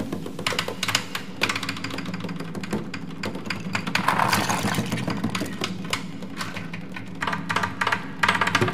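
Dried chili pieces rattling and clicking as a hand stirs through them, the clicks thickest near the end, over soft background music with a steady low drone.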